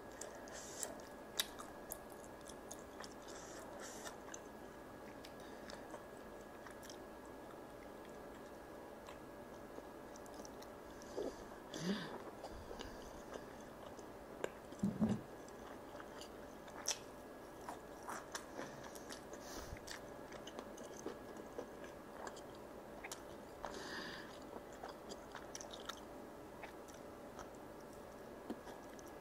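Close-miked chewing of sticky sauce-glazed chicken and chewy rice cakes off skewers: soft, wet mouth clicks and smacks, scattered and irregular, over a faint steady hum.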